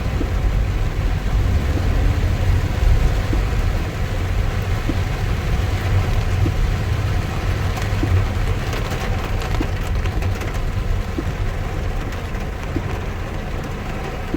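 Heavy monsoon rain falling steadily, its hiss spread evenly, over a continuous low rumble.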